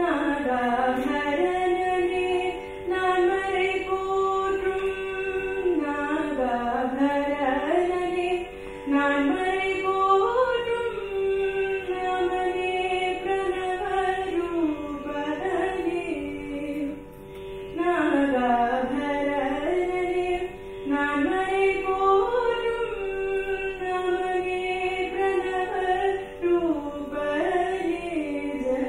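A woman singing an Indian devotional song over a steady drone. Her long, ornamented phrases slide up and down in pitch, with short breaks for breath between them.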